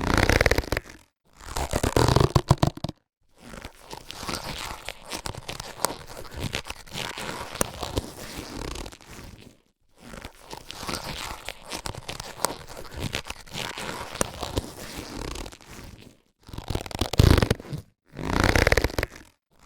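Latex surgical gloves being handled and rubbed, a dense crackling and rustling in bursts split by short silences. The bursts near the start and near the end are louder; the two long stretches in the middle are quieter.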